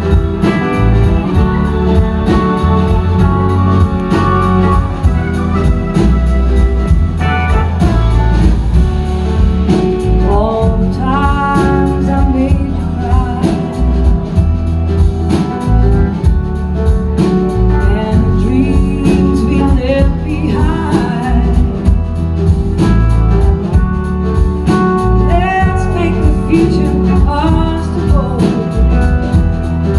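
Blues-rock band playing live through a PA, heard from the crowd: electric guitars, bass and drums with a sung vocal line, and a melody line that glides in pitch now and then.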